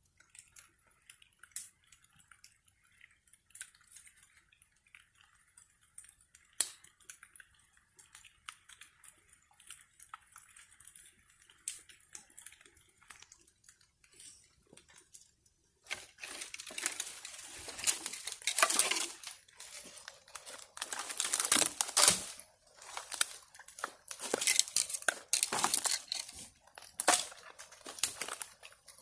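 Wood fire crackling and popping: sparse, faint snaps over a soft hiss at first, then from about halfway much louder, dense crackling.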